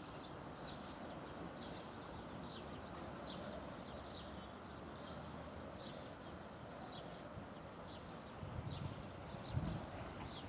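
Faint steady outdoor background noise with a series of short, high, falling chirps, and a few low thuds near the end.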